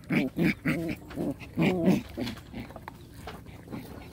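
Puppies play-fighting, giving a quick run of about nine short yips in the first two seconds or so, then going quieter.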